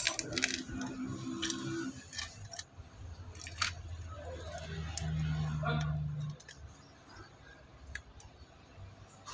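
Small clicks and taps of a phone's cracked screen and bare metal mid-frame being handled and picked at by hand. A low steady hum runs for about three seconds in the middle.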